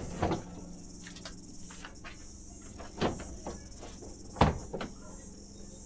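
Short sharp knocks and clicks as a plastic front bumper is pushed into place and its quick-release fasteners are hooked up, with two louder knocks about three and four and a half seconds in.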